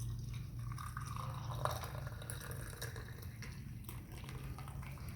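Hot herbal tea trickling and dripping, with scattered small clicks over a steady low hum.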